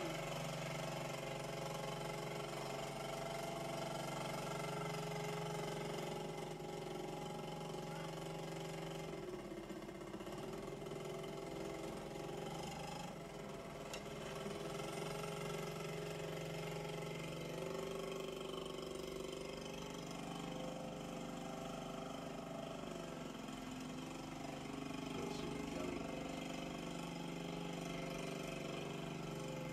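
Small ATV engines, a three-wheeler and a child's mini quad bike, running steadily, the engine note shifting a couple of times, heard through a TV speaker.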